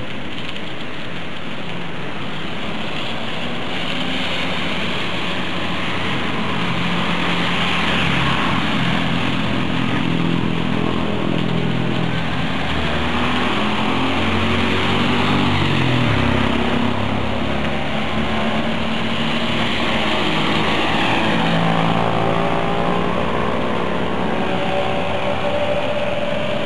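Vehicle engines rising and falling in pitch over a steady hiss of rain and tyres on a wet road.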